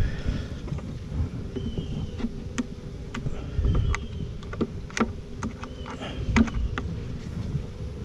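An open honeybee hive during an inspection: a steady bee hum under wind rumbling on the microphone, with sharp clicks and knocks as the wooden frames are handled. A few short high chirps come and go.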